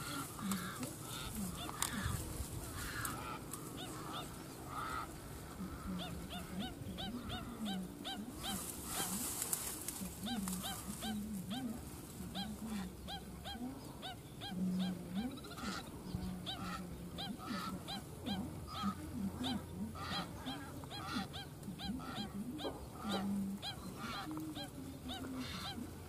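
A flock of waterbirds calling over one another: a steady run of short, repeated low honking calls mixed with many higher chirping whistles.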